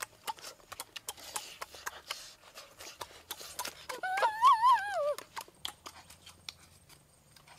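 Close-up eating sounds: lips smacking and wet clicks as grilled fish is bitten and chewed. About four seconds in comes a high, wavering cry lasting about a second.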